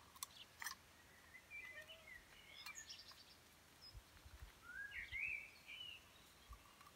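Faint birdsong: scattered chirps and short rising whistles, with two soft clicks about half a second in.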